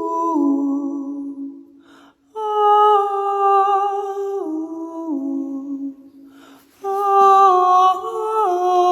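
A woman humming a slow, wordless folk melody in long held notes that step downward, in three phrases with a breath between each.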